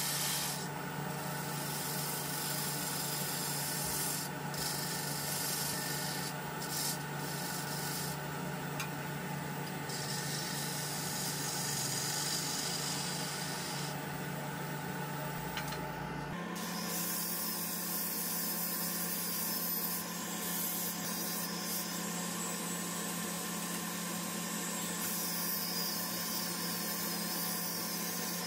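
Wood lathe running steadily while sandpaper rubs against a spinning zelkova bowl. About halfway through the steady hum changes abruptly to a different motor sound with more hiss, as an angle grinder fitted with a sanding pad is run against the turning bowl.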